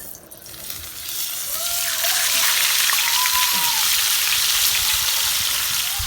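Hot oil sizzling in a deep fryer as fish goes in, the hiss swelling over the first two seconds and then holding steady.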